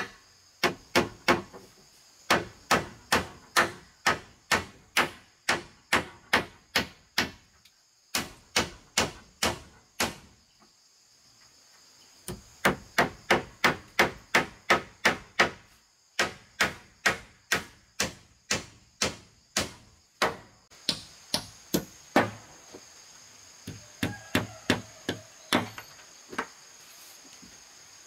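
Hand tool striking hard and repeatedly, in runs of quick blows about three a second with short pauses between runs. Insects buzz steadily in the background.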